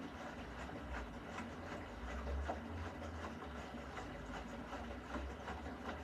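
Beko front-loading washing machine running its wash cycle: a low drum-and-motor hum that swells and eases, with soft clicks and swishes repeating about two to three times a second.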